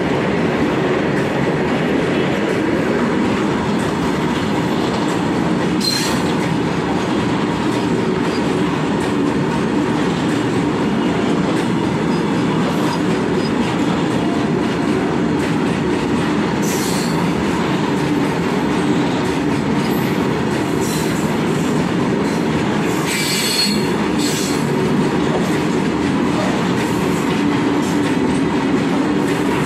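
Goods train's loaded open wagons rolling past at close range: a steady rumble and rattle of wheels on rail, with a few brief high squeals scattered through, the strongest around two-thirds of the way in.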